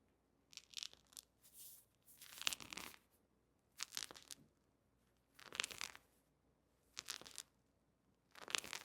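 Knee crepitus during repeated bodyweight squats: faint crackling, grating bursts from the kneecap, one with each squat, about six in all. It is the crackle of worn patellar cartilage (chondromalacia patellae), painless here.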